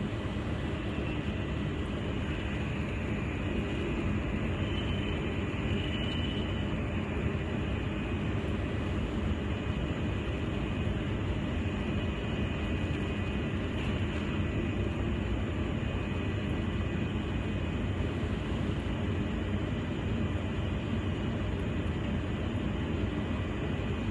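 Jewelry laser welding machine running: a steady hum and hiss with a few faint, high, unchanging tones over it.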